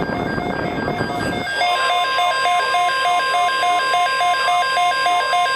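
Emergency Alert System broadcast signal: a rapidly pulsing electronic beep repeating several times a second. It is mixed with a burst of rough noise for the first second and a half. About 1.7 s in, a steady high alert tone joins and holds.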